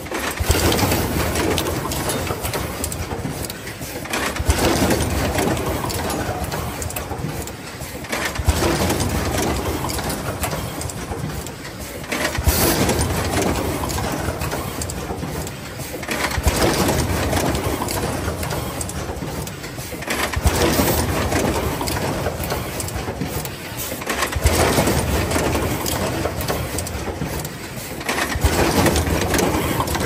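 Automatic plug crimping production line running, its machine noise swelling in a surge about every four seconds as it works through each cycle.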